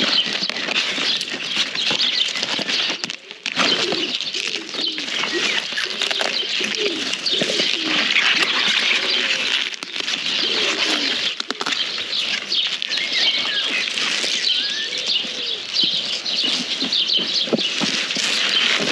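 Kale leaves being snapped off their stalks and handled close up: continuous leafy rustling full of sharp little snaps and crackles, briefly quieter a few seconds in.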